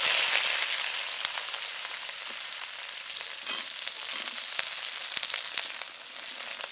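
Cut, just-washed drumstick (moringa) stalks sizzling as they drop into hot mustard oil with fennel seeds in a kadai. The hiss is loudest at first and eases slightly, with scattered crackles and pops.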